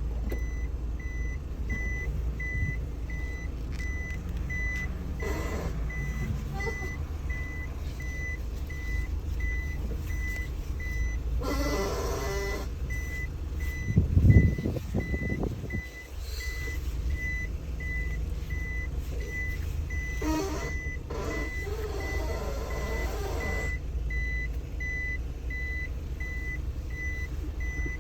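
Suzuki Every DA64W van idling with an electronic beep sounding about twice a second, while turning the steering wheel brings out creaking groans several times, the longest about 21 to 23 seconds in. A loud low thump comes about halfway through.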